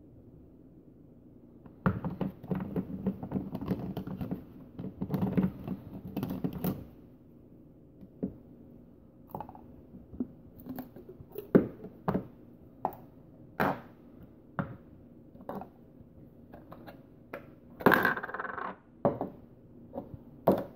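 Hard plastic parts of a BlenderBottle shaker clicking, rattling and knocking as its screw-together storage jars are handled and set down on a counter. There is a dense stretch of rattling early on, then separate sharp knocks about once a second, with a louder scraping clatter a little before the end.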